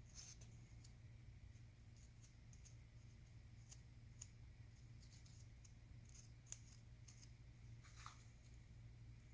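Near silence: a steady low hum with a few faint, sparse clicks and light scrapes from small engine parts being handled on a workbench as a camshaft is fitted.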